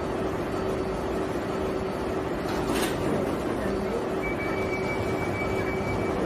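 Underground train running: a steady rumble with a low hum throughout, joined about four seconds in by a thin high whine.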